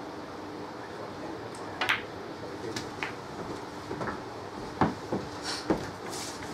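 Snooker balls clicking and knocking: a sharp click about two seconds in, then several more over the next few seconds, the loudest near the end, as the black is potted and handled. A steady low hum of the room runs behind.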